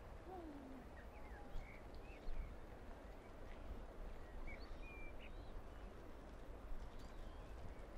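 Wetland lakeside ambience: a faint, steady low background rumble with scattered short, high bird calls and chirps from the waterbirds on the lake.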